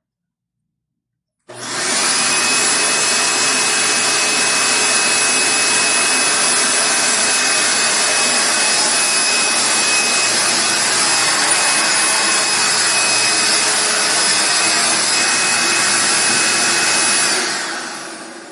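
Dirt Devil 12-amp vacuum cleaner starting abruptly about a second and a half in and running steadily, a high whine over the rush of air, then winding down and fading near the end as it is switched off.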